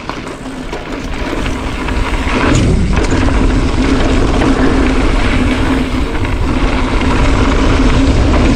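Cube Stereo One77 full-suspension mountain bike rolling down a trail: tyre rumble over dirt mixed with wind rushing over the camera microphone, growing louder over the first couple of seconds as speed builds, then holding steady.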